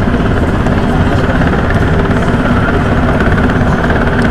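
Steady drone of a P-3C Orion's four Allison T56 turboprop engines as the aircraft flies past, with a higher whine that rises a little near the end.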